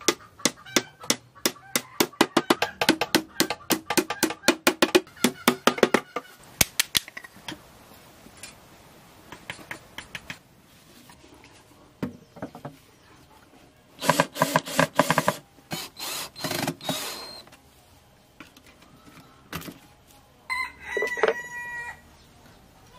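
Domestic fowl calling: a long run of rapid clucks in the first six seconds, more calls around the middle, and one drawn-out crow near the end.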